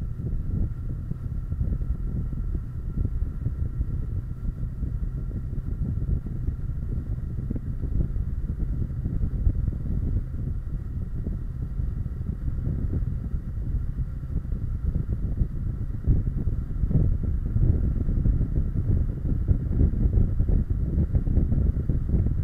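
Kawasaki Versys 650 motorcycle riding along at road speed: wind buffeting the microphone over the bike's engine and tyre noise, a steady low rumble that grows a little louder in the last few seconds.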